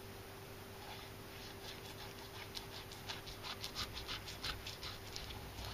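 Kitchen knife cutting along a tilefish with its scales left on: a faint, rapid, irregular run of short crisp crunches as the blade cuts through the hard scales, starting about a second and a half in.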